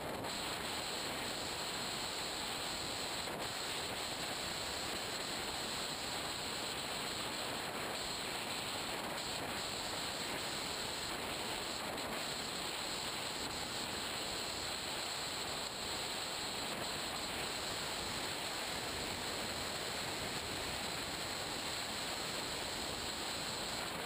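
Steady rush of airflow and propeller noise on board an FPV Raptor RC plane in flight, heard through its onboard camera's microphone.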